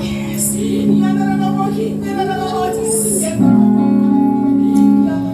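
Background music with sustained chords and a wavering singing voice, the chords swelling fuller about three and a half seconds in.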